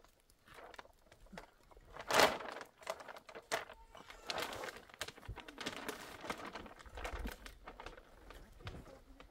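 Plastic sheeting over a tent crinkling and rustling as it is handled and tied down with rope. There is a loud rustle about two seconds in and a longer stretch of rustling a couple of seconds later.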